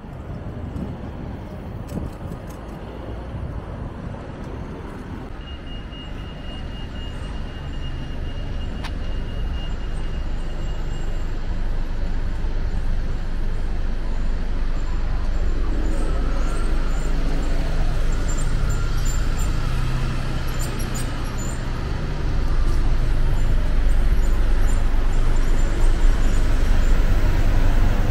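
City street traffic: a steady wash of road noise and engines that grows louder through the stretch, with a heavy low engine rumble in the second half as large vehicles pass close. A thin high tone sounds for several seconds near the start.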